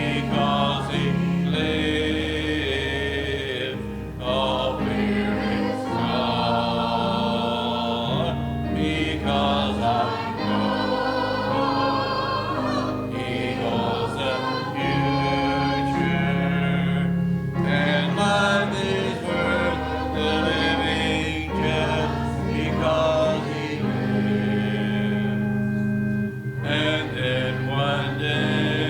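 Group of voices singing a hymn together with instrumental accompaniment, the notes held and moving in steady phrases.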